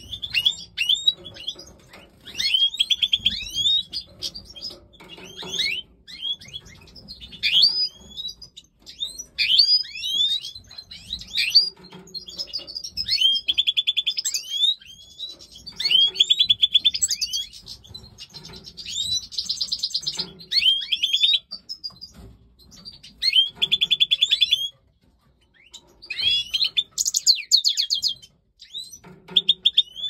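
European goldfinch (Stieglitz Major) singing: a long, varied run of quick twittering notes sweeping up and down, broken by several fast rattling trills and short pauses.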